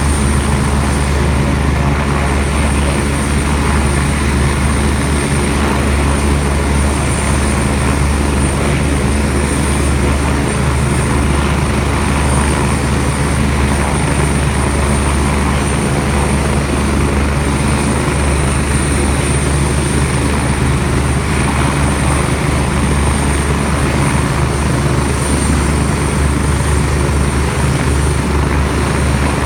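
Twin-turbine rescue helicopter with a Fenestron tail fan running on the ground with its rotor turning before lift-off: a steady high turbine whine over the even, low rotor thrum, unchanging throughout.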